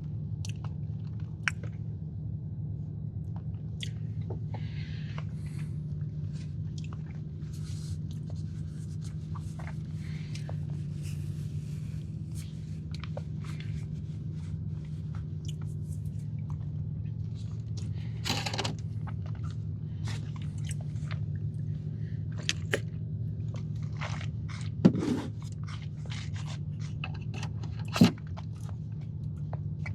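A person chewing and crunching a cookie close to the microphone, with scattered small crunches and clicks and a few sharper knocks, over a steady low hum.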